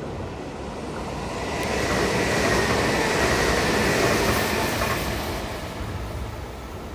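Meitetsu 2000 series μSKY electric express train passing at speed on the adjacent track. It swells up over a couple of seconds, is loudest in the middle with a thin high tone, and fades away by near the end.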